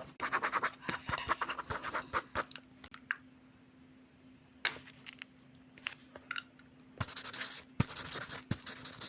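Hands scratching and rustling at squishy-making materials in short spells, with scattered clicks and a quieter stretch in the middle.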